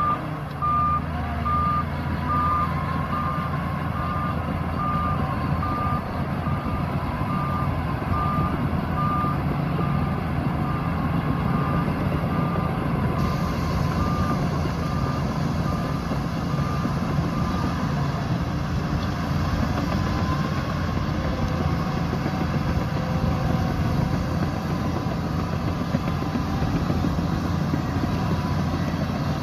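Diesel engine of a Shantui DH17C2 bulldozer running steadily under load. A reversing alarm beeps about once a second, fading and stopping a little past halfway.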